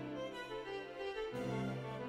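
Background instrumental music with long held notes; a new chord comes in a little past halfway.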